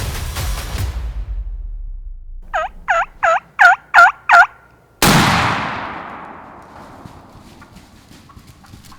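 Music fades out, then a wild turkey gobbles: a quick string of about six notes. Just after it, about five seconds in, a single loud shotgun blast goes off and rings away over a couple of seconds.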